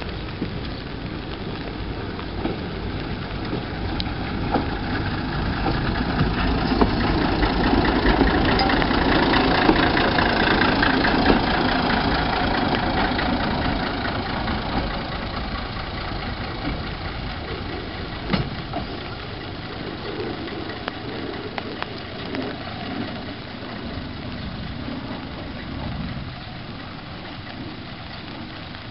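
Nanbu Jukan Railway Kiha 10 railbus, a small single-car diesel railcar, running along the track under engine power. It grows louder to its closest point about ten seconds in, then fades as it draws away and slows toward the station, with a few sharp clicks along the way.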